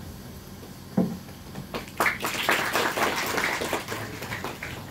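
A small audience clapping for about two seconds, fading out near the end, after a single thump about a second in.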